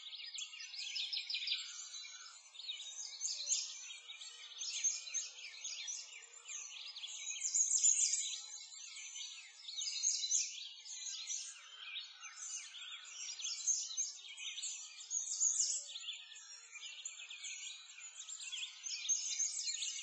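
Many songbirds chirping and twittering together in a dense, high-pitched chorus that swells and fades in loudness.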